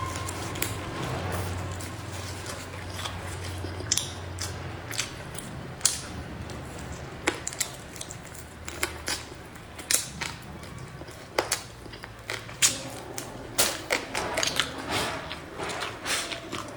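Irregular sharp clicks and knocks, scattered a few per second, over a low hum that stops about five seconds in.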